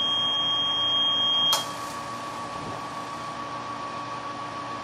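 A steady high electronic beep for about a second and a half, cut off by a sharp click, over a steady hiss and hum from the gas-fired brewing rig's burner controls.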